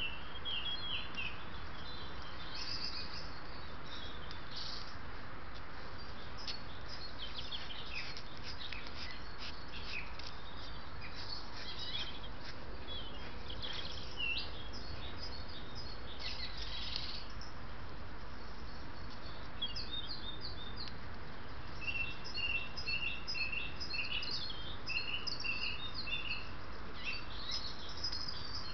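Several wild birds singing and calling in woodland, with short phrases and chirps throughout and a run of repeated notes near the end, over a steady background hiss.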